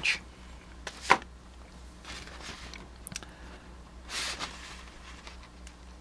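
Quiet workbench handling sounds over a faint steady low hum: one sharp click about a second in, a few light ticks, and a brief rustle of a paper schematic sheet being lifted a little after four seconds.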